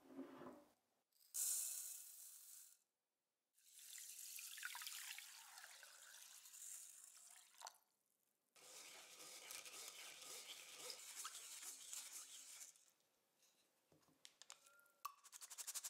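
Short-grain rice being washed with water in a stainless-steel mesh strainer: water splashing and trickling through the grains as they are swished and drained. It comes in three spells of a few seconds each, with short quiet gaps between them.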